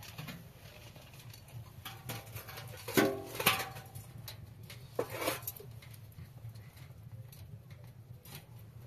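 Small metal shovel scraping ash out of a sheet-metal wood stove and tipping it into a metal basin, with light scratching and a few louder ringing clanks about three and five seconds in.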